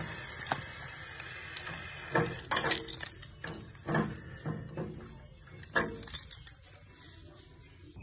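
An adjustable spanner clinking and knocking against a radiator drain-off valve as the valve is turned open to let water out, a few separate sharp metallic knocks.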